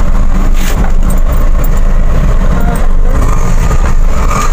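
A moving road vehicle's engine and road rumble, loud and steady, while driving on a badly broken road.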